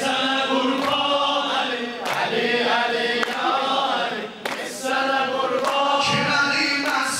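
A group of men chanting a Shia devotional hymn (mersiyye) in chorus, sung into microphones, with hand claps keeping time about once a second.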